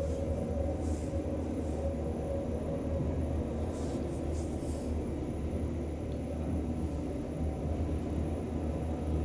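Passenger lift running upward, heard from inside the car: a steady low hum and rumble of the moving car and its drive.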